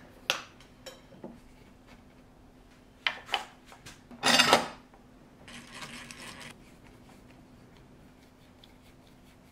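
Wooden workpieces and hand tools being handled and set down on a wooden workbench: a few scattered knocks and clicks, the loudest a bit over four seconds in, followed by about a second of scraping. A faint steady hum runs underneath.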